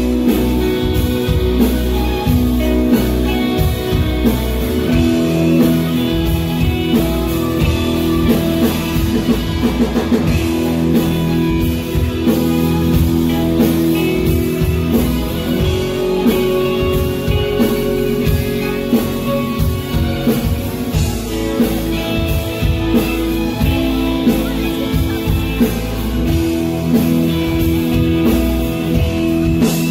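Live rock band playing: acoustic guitar strummed over a drum kit, amplified through the club's PA.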